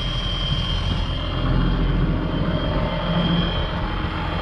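Diesel engine of a wheeled excavator running steadily close by, a deep even drone.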